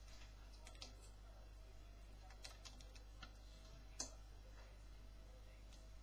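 Faint clicks and taps of a plastic siphon tube being handled and fed into the neck of a plastic demijohn, over near silence; the sharpest click comes about four seconds in.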